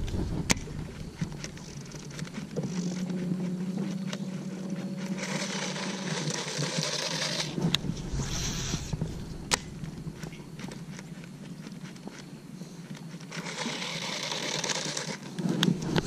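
A baitcasting reel being cranked on two retrieves, with a few sharp clicks of tackle being handled. A low steady hum runs for several seconds in the first half.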